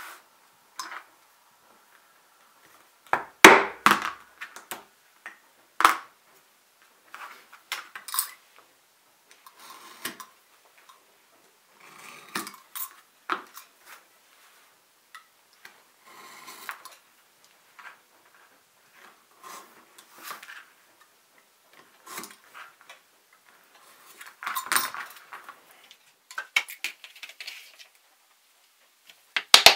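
Leatherworking handwork: metal hand tools clinking and being set down on a cutting mat, and a tool scraping along the edge of a thick leather strap, in scattered short bursts with a few sharper knocks.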